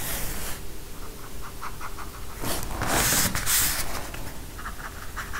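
Water brush bristles scratching lightly over watercolour paper in quick little strokes, with a louder rustle lasting about a second and a half in the middle.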